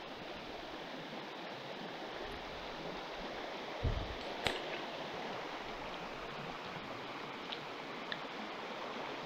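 River water flowing steadily, an even rushing sound, with a low thump about four seconds in, a sharp click just after it, and two faint ticks near the end.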